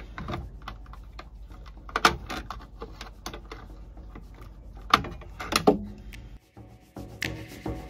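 Small clicks and taps of hand tools, a screwdriver and then pliers, working on a marine air conditioner's wiring box, with sharper knocks about two seconds and about five seconds in.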